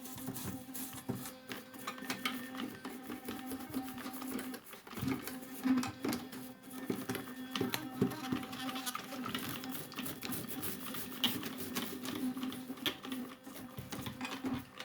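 Cleaning of a Juwel Model 3 typewriter's type bars: fast rubbing and many light clicks of metal parts, over a steady low hum.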